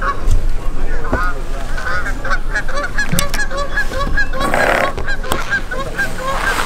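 A flock of geese honking, many short calls overlapping in quick succession, with a brief rustling noise about four and a half seconds in.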